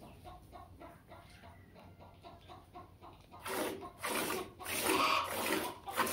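Milk squirting into a metal pail during hand milking of a cow, about two squirts a second, starting about three seconds in. Before that, a hen clucks softly in quick repeated clucks.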